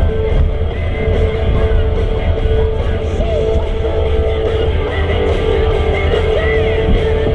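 Rock music with electric guitar.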